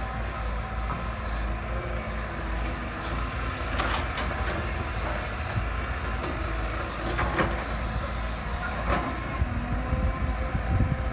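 Heavy machinery running with a steady low engine rumble, with a few metallic clanks about four, seven and nine seconds in and a run of knocks near the end.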